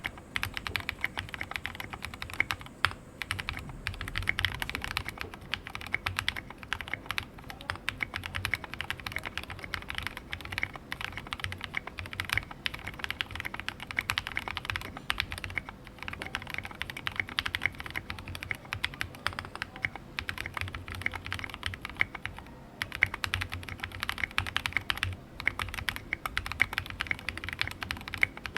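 Fast typing on a mechanical keyboard with lubed Gateron Merlot linear switches in a plateless build, an NPKC resin case and tall SA-profile ABS keycaps. It is a dense, fast run of key presses, broken by short pauses every few seconds.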